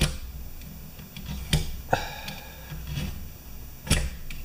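A knife cutting a thin strip off a piece of linoleum against a metal bar: four sharp clicks and cracks as the blade bites and snaps through, one about two seconds in followed by a brief metallic ring.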